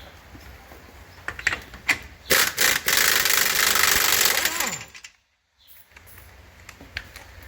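Impact wrench hammering for about two and a half seconds to spin off a 32 mm rear hub nut, winding down with a falling whine at the end; a few clicks and knocks come before it.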